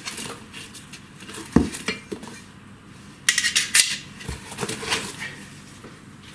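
Metal parts of a CNC router kit clinking and knocking together as they are handled and unpacked, with a quick run of sharp clinks about three and a half seconds in.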